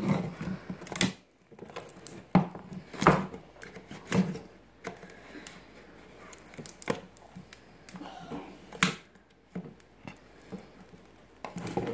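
Rigid clear plastic packaging being handled and prised at while still sealed shut, giving scattered sharp clicks, taps and crackles a second or two apart.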